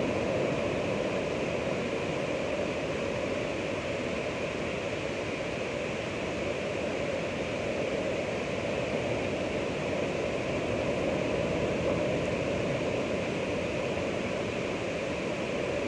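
Ocean waves: a steady wash of surf with no single breaker standing out.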